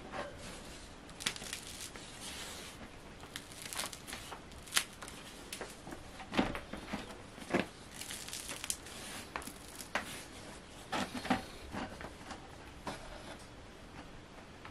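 Crisp crusts of freshly baked baguettes crackling as hands grip, squeeze and lift the loaves, in scattered sharp crackles and rustles.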